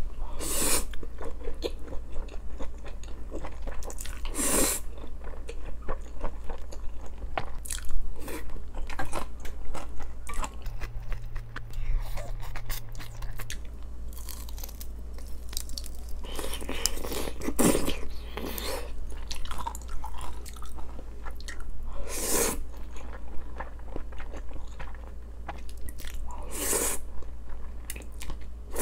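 Close-miked chewing and biting of grilled beef small intestine (gopchang), with a handful of louder crunches spread through. A steady low hum runs underneath.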